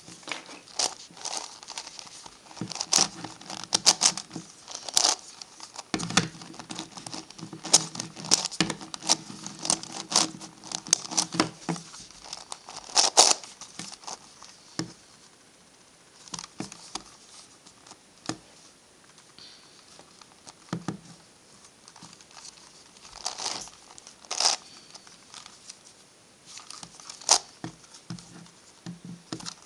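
Plastic clicking and rattling of an MF8 Gigaminx, a dodecahedral twisty puzzle, as its faces are turned quickly by hand. The turning comes in rapid runs, densest in the first half and sparser later.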